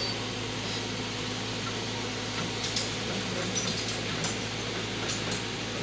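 Heavy diesel engine running steadily at a constant speed, with scattered light clicks and knocks over it from about halfway through.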